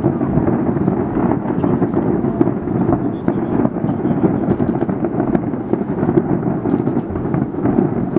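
Aerial fireworks going off in a continuous rumble of booms and bangs, with quick bursts of high crackling a little past halfway and again a couple of seconds later.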